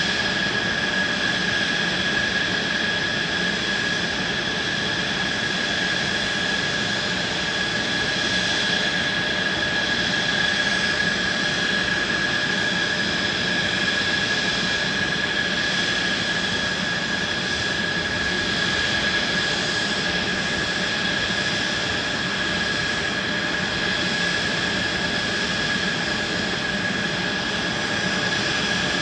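Mitsubishi F-2 fighter's F110 turbofan engine running on the ground at a steady setting: a high, unchanging whine over a broad rushing noise.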